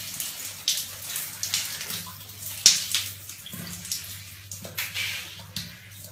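Water jet from a handheld shower head spraying onto a flat surface: a hissing splash that surges and eases irregularly. There is a sharp click about two and a half seconds in.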